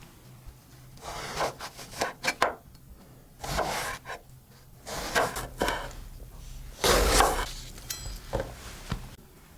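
Vegetables being worked on a wooden cutting board: about six short rubbing, scraping strokes, then two light knocks near the end.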